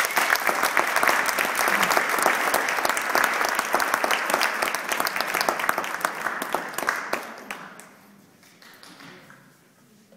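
Audience applauding, dense clapping that tapers off and dies away after about seven seconds.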